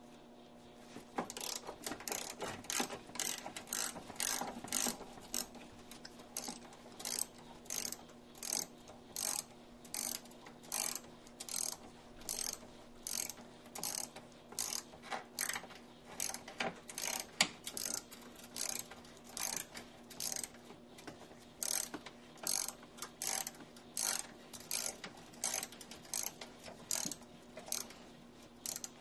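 Ratchet wrench being worked back and forth to unscrew a radiator retaining bolt, a short burst of ratchet clicks on each back stroke, about two strokes a second.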